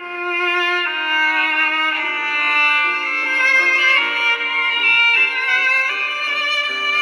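Mobile phone ringtone playing: a short melody of held notes that change about once a second.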